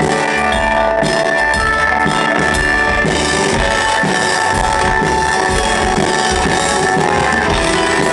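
Live rock band playing an instrumental passage without vocals: electric guitar notes held over a drum kit with steady kick-drum beats, loud through the venue's PA.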